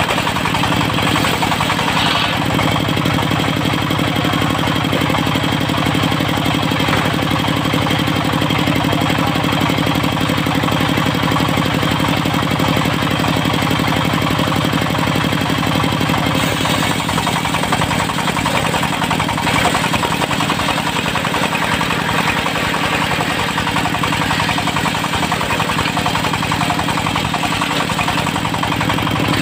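Diesel engine driving a locally built circular-blade sawmill, running steadily. A little past halfway the sound shifts, the low engine note weakening as a higher hiss comes in.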